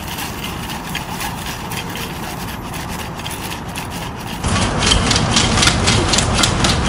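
MIT Cheetah 3 quadruped robot walking: its electric leg motors make a steady whirring noise with light taps of its feet. About four and a half seconds in the sound turns louder and the footfalls become a quick run of sharp clicks on pavement over a low hum.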